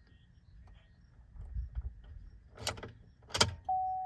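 Two sharp clicks as the pickup's ignition is cycled again to prime the fuel system, then the instrument cluster chime sounding a single steady tone that slowly fades. No lift pump hum is heard: the fuel system is already up to pressure.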